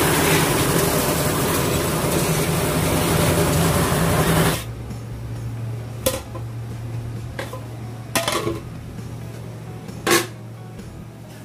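Building-site machinery, a concrete mixer and a bucket hoist, running steadily; it cuts off suddenly about four and a half seconds in. After that there is a quieter steady hum with a few sharp knocks of metal pots.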